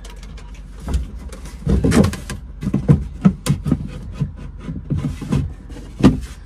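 Plywood panel knocking and scraping against its wooden frame as it is worked into place, a run of irregular light knocks and thumps with one of the loudest shortly before the end.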